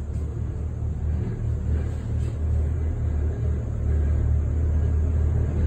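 LiAZ-677 bus heard from inside the saloon: a steady low rumble from the running drivetrain, with a light jingling, bottle-like rattle. The rattle comes from the worn cross joints and hanger bearing of the intermediate driveshaft between the engine and the hydromechanical gearbox.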